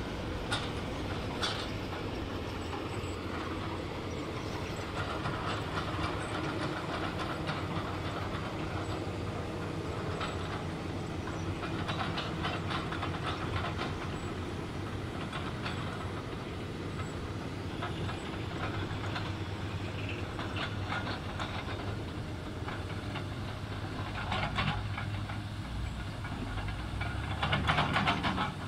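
Komatsu PC300 hydraulic excavator travelling on its steel crawler tracks: a steady engine drone under repeated bursts of track links clanking and rattling, loudest near the end.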